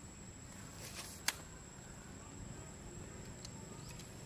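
Quiet outdoor ambience with a faint low rumble and a steady faint high-pitched tone, broken by one sharp click about a second in.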